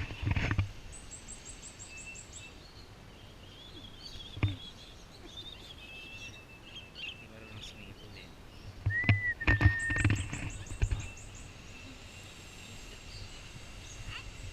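Birds chirping and whistling: two quick high trills and several short whistled notes. A run of loud thumps and knocks comes between about nine and eleven seconds in.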